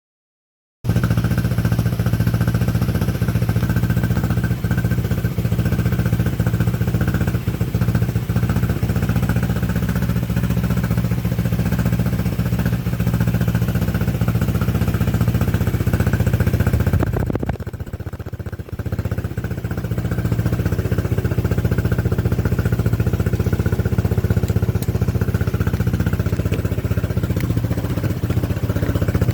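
Apache quad bike's small single-cylinder engine running steadily, starting abruptly about a second in; it drops back briefly a little past the middle, then settles back to the same steady running.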